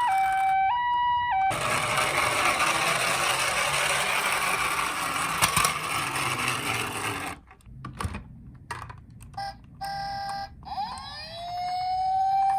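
A toy ambulance's two-tone hi-lo siren, which cuts off about a second and a half in. Several seconds of steady rushing noise follow, then a few short broken tones. Near the end a toy police car's wailing siren rises and holds at a steady pitch.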